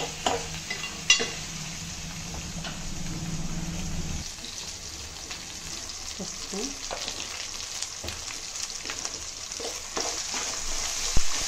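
Sliced onions, ginger and green chillies sizzling as they fry in oil in a metal pot, stirred with a steel ladle that clicks and scrapes against the pot now and then. A low hum runs underneath for about the first four seconds and then stops suddenly.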